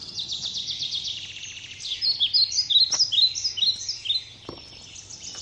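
Small birds chirping and twittering in a busy chorus of high, quick notes, with a run of short falling chirps about two to three seconds in.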